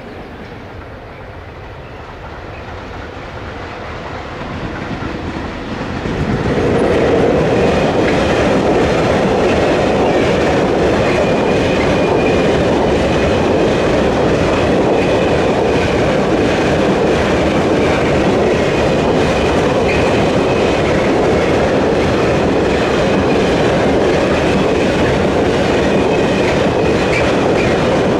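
A freight train of open wagons approaches and runs past: its rumble builds over the first six seconds, then holds loud and steady, with the wheels clattering over the rails and a faint high ringing tone on top.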